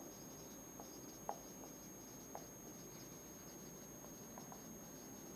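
Faint dry-erase marker writing on a whiteboard: light squeaks and a few small taps, the clearest tap about a second in.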